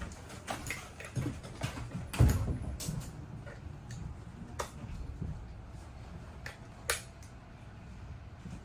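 Scattered knocks and clicks of hands-on drywall work, with a heavier thump about two seconds in and a sharp click about seven seconds in.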